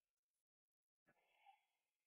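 Near silence, with one faint click about a second in and a short faint sound just after it.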